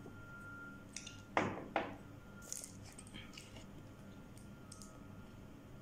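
A ceramic mug set down on a tabletop with two knocks, then the light crackling of a plastic water bottle being handled.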